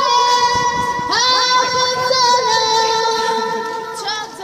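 A young girl singing solo into a microphone, holding long notes that glide from one pitch to the next.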